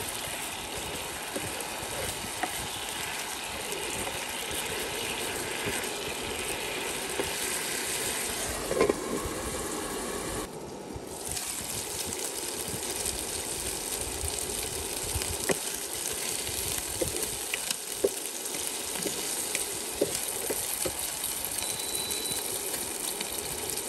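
Chicken pieces sizzling in a non-stick frying pan as a soy-based sauce bubbles and cooks down to a glaze: a steady frying hiss, with a few light knocks of the spatula against the pan.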